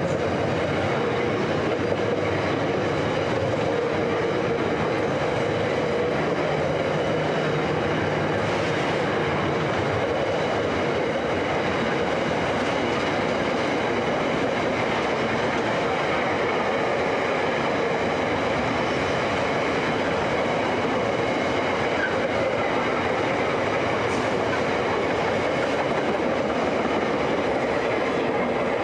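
Container freight wagons rolling past at speed: a steady loud rumble of steel wheels on rail with clickety-clack over the joints and a steady whining tone running through it.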